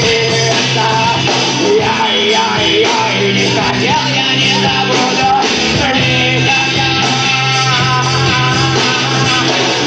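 A rock band playing live, with a singer's voice over the instruments.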